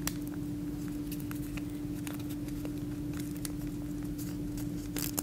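Paper rustling and creasing in small, faint ticks as an origami fold is made by hand, with a sharper crinkle near the end, over a steady low hum.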